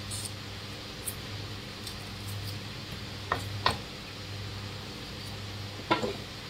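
Steady low hum with a few light clicks and taps, three or four in all, of ingredients and a knife being handled during food preparation.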